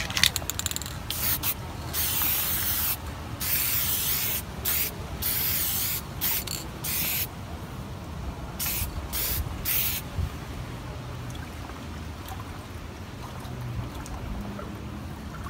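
Aerosol spray-paint can hissing in a string of short and longer bursts over the first ten seconds, as letters are painted on a garage door.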